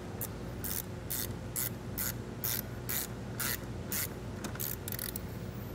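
Hand ratchet with a 10 mm socket clicking in short bursts, about two a second, as the nut on a battery terminal clamp is tightened.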